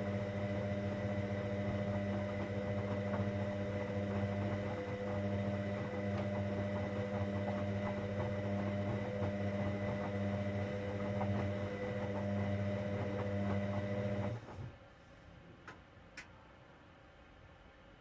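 Hoover Dynamic Next washing machine running with a steady electrical hum that cuts off suddenly about fourteen seconds in, followed by two short clicks.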